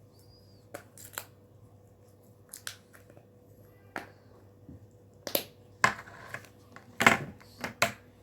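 Small plastic Play-Doh tubs and their wrapping being handled as the dough is put back: a string of irregular clicks, taps and crinkles, loudest and busiest in the last few seconds.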